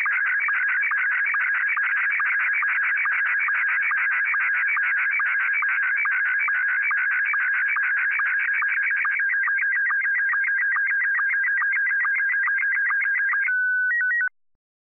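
Slow-scan television (SSTV) picture signal from MMSSTV: a rapid, buzzy warble of audio tones repeating line after line as the image is sent. Near the end it settles into a steady tone with a few short beeps, then cuts off suddenly as the transmission ends.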